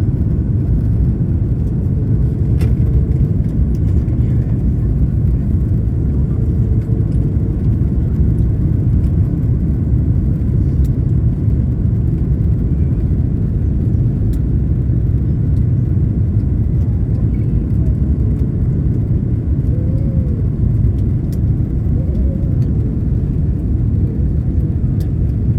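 Airbus A330 cabin noise on approach: a steady low rumble of airflow and engines heard from inside the cabin, with a few faint clicks.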